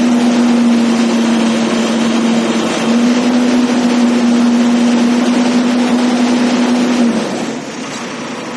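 ACE backhoe loader's diesel engine running hard at high revs with a steady whine, easing off to a lower, quieter run about seven seconds in.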